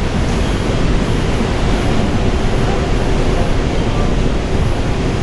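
Steady rumble and roar of a moving New York City subway train, heard from inside the car.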